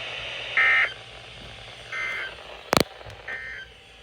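Weather radio sending the EAS/SAME end-of-message code after a severe thunderstorm warning: three short warbling data bursts about 1.4 seconds apart, over radio hiss. The first burst is the loudest, and a sharp click falls just before the third.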